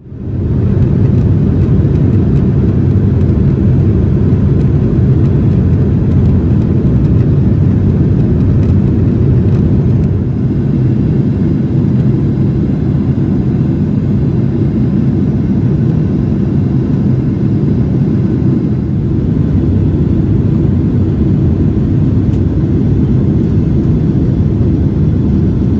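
Cabin noise of a Boeing 777-300ER in flight: a steady low roar of the jet engines and rushing air, heard from a window seat, fading in at the very start.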